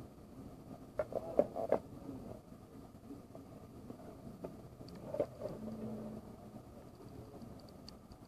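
Light taps and clicks of fingers handling a metal gum tin as it is turned over: a quick run of four about a second in and a couple more around five seconds, over a faint steady hum.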